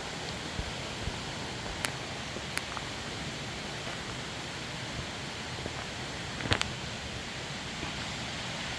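Steady rush of a waterfall and creek, with a few short sharp clicks, the loudest a quick double click about two-thirds of the way in.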